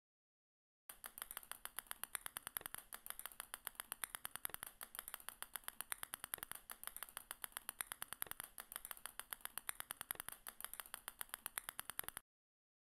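Rapid, even clicking, about seven light clicks a second, as small balls drop one by one onto a growing pile. It starts about a second in and cuts off suddenly near the end.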